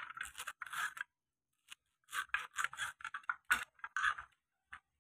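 Kitchen knife chopping a bunch of green beans into small pieces on a wooden cutting board: a quick run of short cuts, a pause of about a second, then another run of cuts and one last cut near the end.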